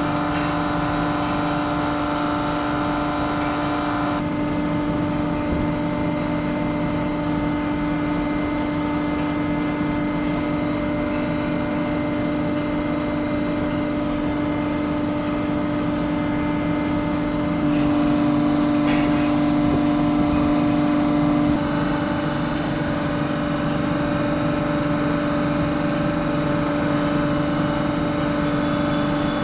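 Hydraulic pump of a compression testing machine running with a steady hum and a constant tone while it loads an aggregate crushing test sample toward 400 kN. A higher whine sits over it for the first four seconds, and the hum grows a little louder for a few seconds past the midpoint.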